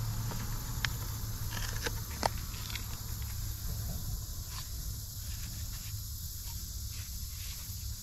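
Steady outdoor hiss and low rumble, with a few sharp small clicks and knocks in the first few seconds and fainter ones later.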